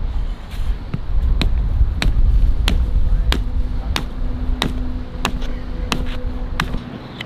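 A flat rock hammering a tent stake into sand: about a dozen sharp knocks, roughly two a second, with wind rumbling on the microphone until near the end.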